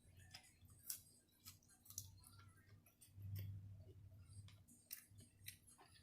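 Near silence broken by a few faint, sharp clicks from someone eating, with soft chewing.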